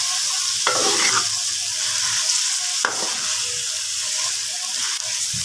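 Thick potato and mongray curry (salan) sizzling steadily as it fries in an aluminium pot, its water cooked off at the bhuna stage. A spoon stirs it and knocks against the pot twice.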